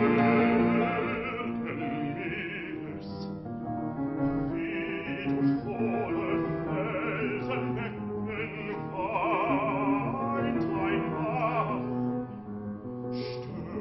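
Classical art song: a bass-baritone singing in operatic style over grand piano accompaniment, the voice with a wide vibrato.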